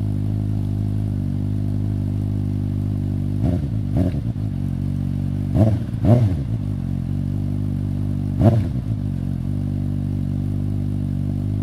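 Suzuki GSX-S 750 inline-four with a LeoVince aftermarket exhaust idling steadily. It is given five quick throttle blips, in two pairs and then one, each sending the revs up and straight back down to idle.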